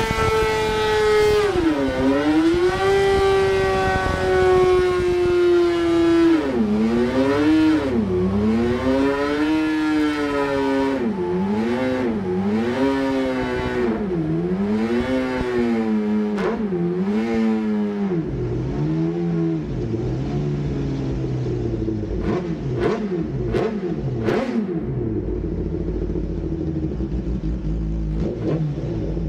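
Suzuki GSX-R1000 L9R inline-four superbike engine with a Yoshimura titanium exhaust, winding down from high revs. The revs dip and recover over and over, then drop away, with a few sharp exhaust cracks before it settles to a steady idle near the end.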